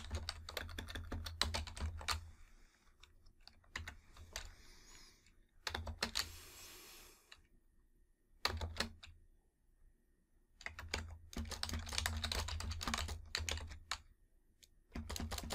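Typing on a computer keyboard: several bursts of quick keystrokes with short pauses between them.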